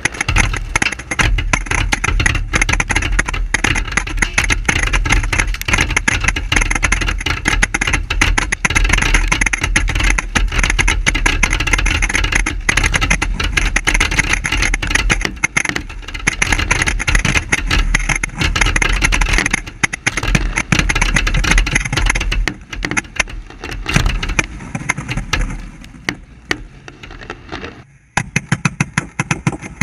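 Fireworks going off in rapid succession at very close range: a dense barrage of bangs and crackling with deep booms underneath, thinning out over the last several seconds and breaking off abruptly near the end.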